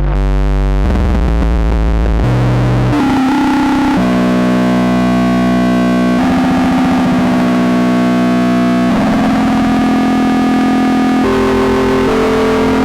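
Experimental electronic noise music: loud, distorted synthesizer tones holding chords that shift to new pitches every second or few.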